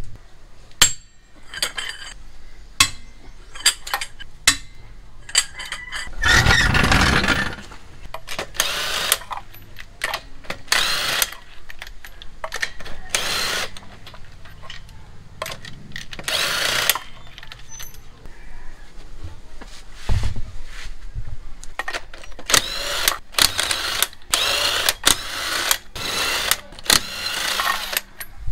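Cordless impact wrench hammering the wheel lug nuts loose, in a series of short bursts about a second long, with sharp clicks and clanks of the tool and socket between them.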